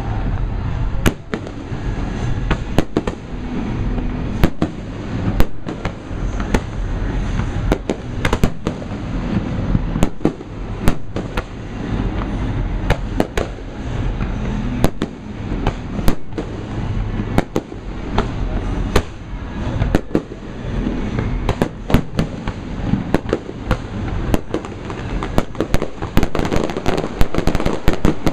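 Fireworks display: aerial shells bursting in a steady run of sharp bangs over a continuous low rumble of booms and echoes, turning into dense rapid crackling near the end.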